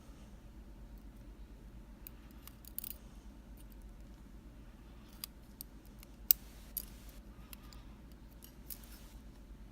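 Scattered small metallic clicks of lock pins and springs from a disassembled Mul-T-Lock Junior being handled and laid out, the sharpest about six seconds in.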